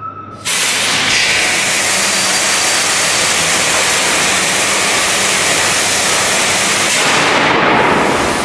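DM 884WS-150 eight-cylinder diesel engine starting up: a loud rushing hiss cuts in suddenly about half a second in and holds steady under a faint low hum, easing near the end.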